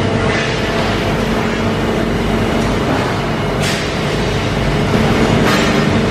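Industrial machinery running in a factory hall: a steady loud drone with several humming tones over a low rumble, broken by a short hiss about three and a half seconds in and another near the end.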